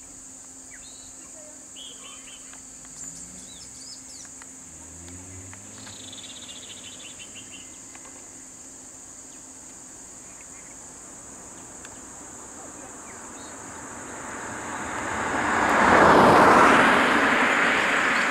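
A car passes close by, its engine and tyre noise swelling to loud about two-thirds of the way through and then fading. Before it, a steady high insect drone with scattered bird chirps.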